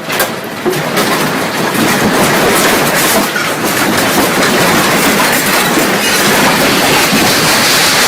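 Building shaking in a strong earthquake: continuous loud rattling and clattering, dense with quick knocks and clinks of loose objects.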